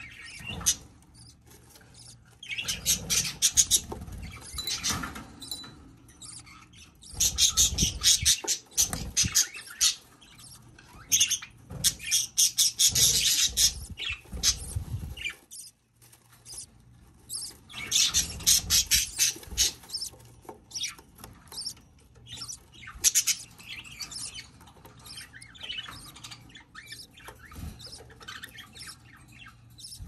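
Budgerigar hen moving about in a nest box with wood-shaving bedding, making bursts of scratchy rustling with budgie squawks and chirps, broken by quieter pauses.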